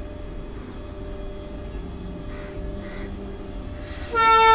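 Indian Railways twin-section electric goods locomotive approaching with a steady low rumble, then about four seconds in its horn sounds, loud and steady.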